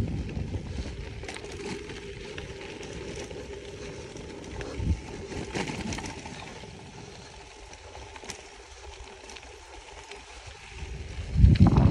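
Bicycle tyres crunching and crackling over a sandy, washboarded dirt road on a steep climb. There are low rumbles at the start and a louder one near the end.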